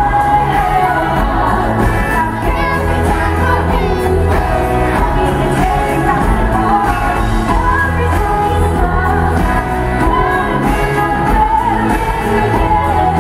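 Live pop song through a stage PA: a woman's lead vocal sung into a handheld microphone over an amplified band with electric guitar and heavy bass, heard from the crowd.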